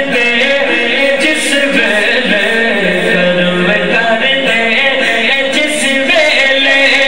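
A man singing a Punjabi devotional kalam (naat) into a microphone, his voice amplified. He holds long, bending melodic lines without pause.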